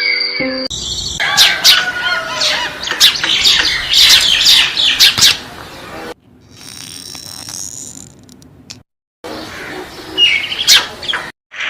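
Birds chirping and squawking, many quick downward chirps, loud at first and then fainter, broken by two sudden cuts to silence.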